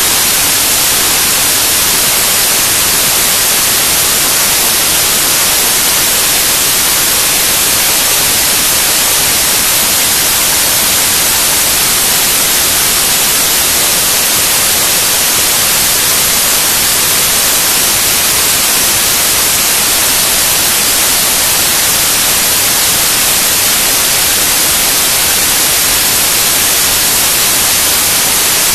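Loud, unchanging static hiss, strongest in the treble: raw computer file data on a Mini DV tape played back as if it were audio, so the digital bytes come out as pure noise.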